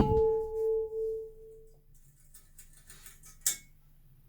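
A heavy metal disc from a Renault car clanks as it is taken off a pipe and rings with a clear bell-like tone that fades over about two seconds. A few faint clicks follow near the end.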